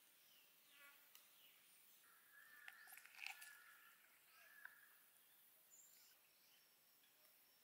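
Near silence, with a few faint high chirps and clicks around the middle.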